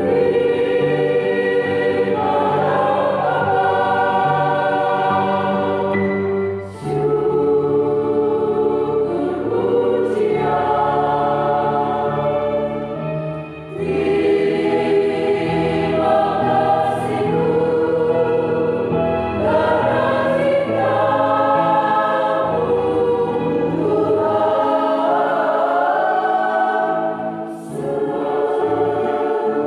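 A choir of women's voices singing a Christian hymn in parts, in long sustained phrases with a brief pause for breath between them, three times.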